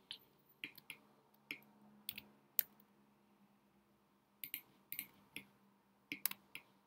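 Scattered, irregular clicks from a computer mouse and keyboard keys, with a faint steady low hum underneath.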